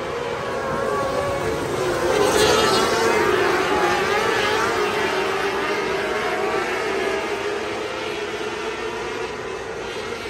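A field of 600cc micro sprint cars racing, their motorcycle engines running at high revs with several overlapping pitches rising and falling. The sound is loudest about two seconds in as cars pass close by.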